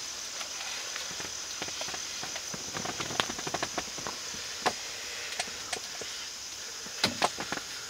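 A steady high-pitched insect chorus, with scattered sharp clicks and crackles through it: a run of them between about one and a half and four seconds in, and the two loudest snaps about seven seconds in.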